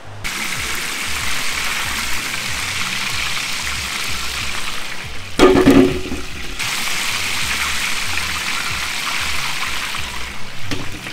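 A steady, loud hiss. About five seconds in it breaks for about a second under a louder, lower clatter, then the hiss resumes.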